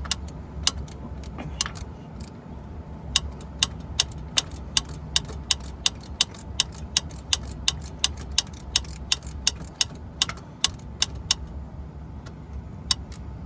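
Hand ratchet with a deep socket clicking in quick, even strokes, about two to three clicks a second, as a long-threaded starter mounting bolt is backed out. The clicking pauses briefly near the end, then resumes.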